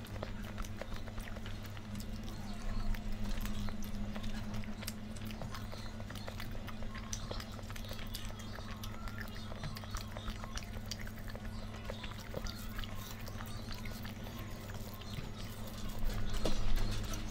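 Close eating sounds: someone chewing food, with many small clicks and smacks, over a steady low hum.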